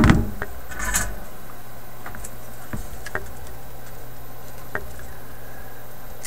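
Handling noise at a metal radio chassis: a knock at the start and a clatter about a second in, then a few light clicks as a soldering iron and solder are worked at a joint, over a steady low hum.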